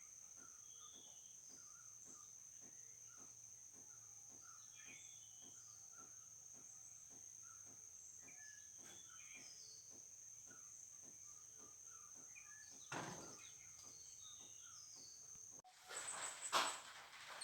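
Faint steady high-pitched insect trill, with faint regular ticking about two and a half times a second and scattered small bird chirps. A louder noisy burst comes about 13 seconds in, and near the end the sound cuts abruptly to a louder, noisier scene.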